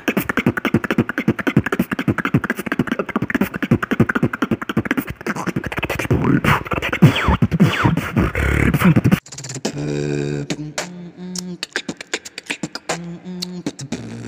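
Solo human beatboxing: a fast, dense stream of mouth-made kick, snare and hi-hat sounds, dull and lacking treble. About nine seconds in it cuts off abruptly and an outro music track takes over, with a repeating bass line and a beat.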